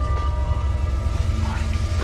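Horror-film score: a steady, ominous low drone with a few faint high held tones.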